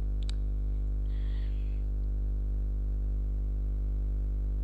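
Steady low electrical hum, a buzz with many overtones, on the recording. There is a single sharp click a fraction of a second in and a short soft hiss about a second in.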